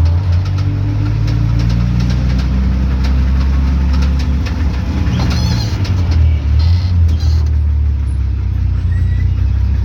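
1976 Datsun 280Z's inline-six engine running steadily with a knock that the owner takes for rod knock; something doesn't sound right.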